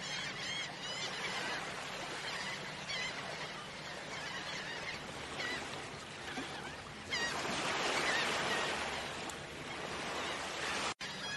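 Many birds calling in short, repeated chirping calls over a steady rushing hiss that swells about seven seconds in.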